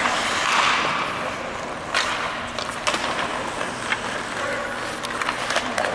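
Ice hockey skates scraping and carving across the ice, with several sharp clacks of pucks and sticks scattered through.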